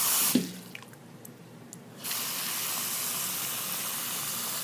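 Kitchen tap running water, likely into the ramen bowl: a short gush at the start, then a steady stream from about two seconds in that stops just before the end.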